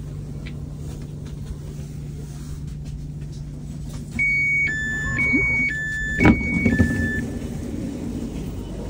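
Train door-closing warning on a Sprinter commuter train: a two-tone signal alternating high and low, three times over about three seconds, with a knock about six seconds in as the door shuts. A steady low hum from the standing train runs underneath.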